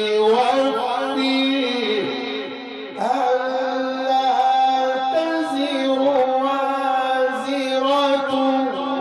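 A man reciting the Quran in the melodic mujawwad style, drawing out long ornamented notes. The phrase fades about two seconds in and a new long phrase begins at about three seconds.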